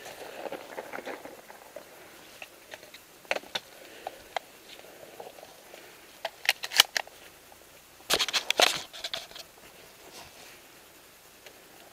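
Close rustling and handling noise at the microphone: scattered clicks and scrapes, with two brief flurries of sharper clicks about six and a half and eight seconds in.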